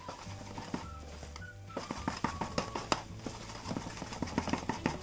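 Wooden spatula stirring thick raw-mango halwa in a nonstick pan, with a run of quick, irregular soft clicks and scrapes from about two seconds in, over background music.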